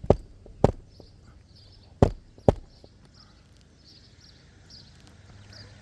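Hammer driving roofing nails into a replacement shingle: four sharp strikes, two in quick succession, then after a pause of about a second two more.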